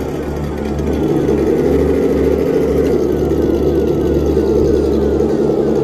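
Scale RC crawler truck driving slowly with a steady engine-like drone. A faint falling whine repeats about twice a second over it.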